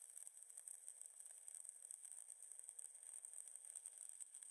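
Faint, steady crackle of a stick-welding arc from a 1/8 inch 6013 electrode.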